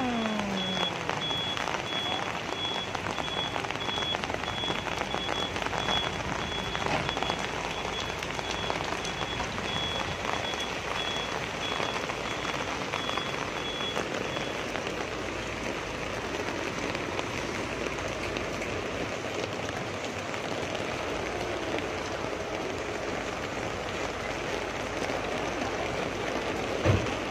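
Heavy rain pouring down, a steady hiss of water on the wet street. Over it a high electronic beeping pulses evenly and stops about halfway through, and a short knock sounds near the end.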